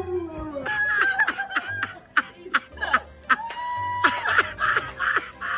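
A dog's howl slides down in pitch and trails off at the very start. Then people laugh and snicker in short, broken bursts.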